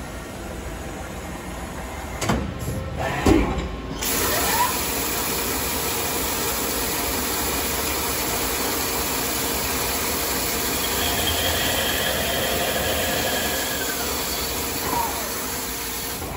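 CNC lathe machining a part: two knocks about a second apart, then about four seconds in the coolant flood switches on with a sudden steady hiss that carries on over the running spindle as the tool cuts.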